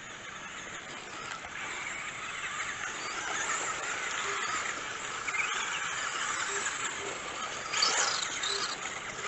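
Several Traxxas Bandit electric RC buggies racing on dirt, their motors whining and rising and falling in pitch over each other as they speed up and slow down, with tyre and gravel noise.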